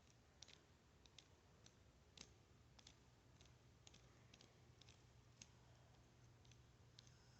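Faint, sharp little pops coming irregularly, about two a second.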